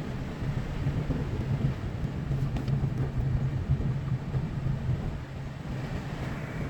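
Car driving, a steady low engine hum over rumbling road and tyre noise, heard from inside the cabin.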